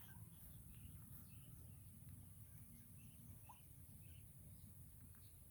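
Near silence: faint outdoor background with a low rumble and a few scattered short, faint bird chirps.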